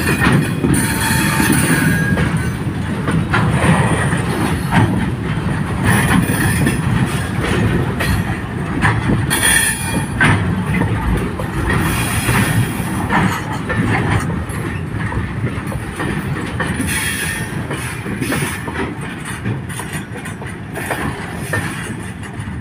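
Container freight train rolling past, its steel wheels clattering over the rail joints with high wheel squeals that come and go. The sound eases off slowly near the end as the brake van, the last car, goes by.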